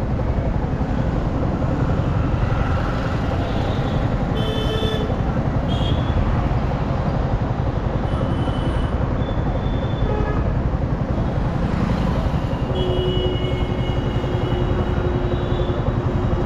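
Road traffic at night: a steady low rumble of engines with wind on the microphone, broken by several short vehicle horn toots about four to nine seconds in and a longer horn from about thirteen seconds.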